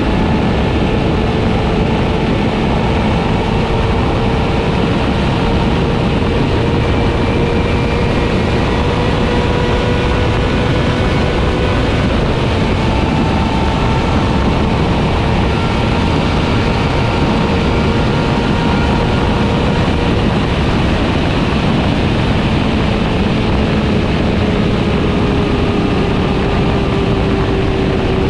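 Four-cylinder sport motorcycle engine running at steady high revs while cruising, over rushing wind noise. The engine note holds nearly even, creeping slightly higher in the first half and easing gradually lower towards the end.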